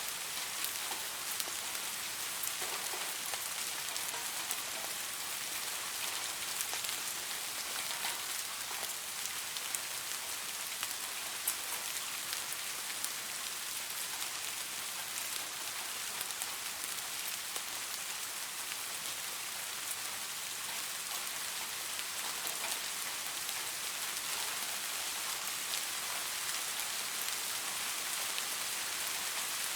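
Steady rain falling on leaves: a dense, even hiss scattered with the small ticks of single drops.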